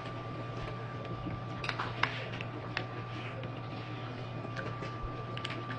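Soft chewing and a few scattered small mouth clicks as a person eats a dumpling, over a steady low electrical hum with a faint high whine.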